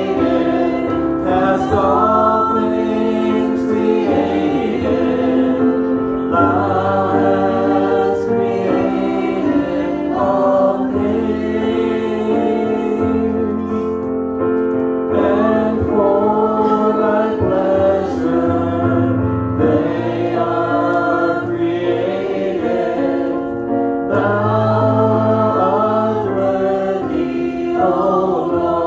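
Small worship team of male and female voices singing a hymn together in harmony, accompanied by a digital piano, in sustained phrases that change every couple of seconds.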